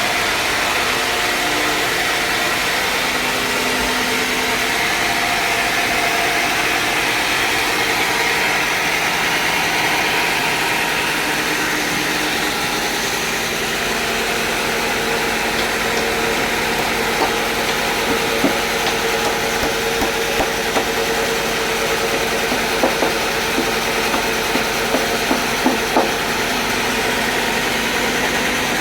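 Sawmill machinery running steadily with an engine hum, joined in the second half by a series of short, sharp knocks.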